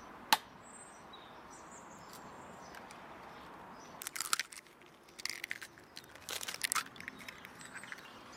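An egg cracked with one sharp tap against the rim of a wooden bowl, then a spoon scraping and stirring it into a thick, creamy mixture in the bowl in three short bouts. Birds chirp faintly.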